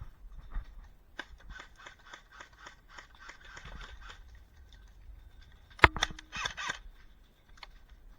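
Airsoft gunfire: a run of quick clicking shots lasting about three seconds, then a single loud sharp crack and a short rapid burst about six seconds in.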